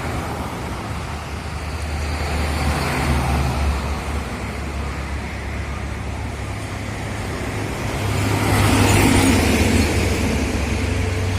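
A bus's diesel engine rumbling low and steady over the rush of highway traffic. The traffic noise grows louder from about eight seconds in.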